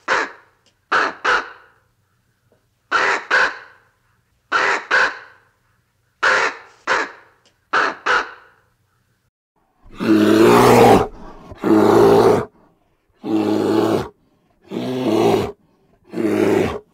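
A raven croaking in quick pairs, about six double croaks. From about ten seconds in, a bear growls in six loud, harsh bursts of about a second each.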